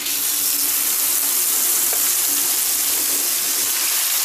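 Hot sesame oil sizzling loudly and steadily as lemon pickle pieces coated in chilli powder are tipped in and stirred with a wooden spatula; the hiss starts suddenly as the pickle hits the oil.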